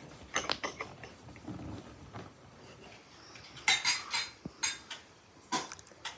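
Dishes and cutlery clinking and scraping in short clusters: a utensil against a metal baking tray and plate as sweet rolls are served, and tea glasses being handled. The loudest clatter comes a little past halfway.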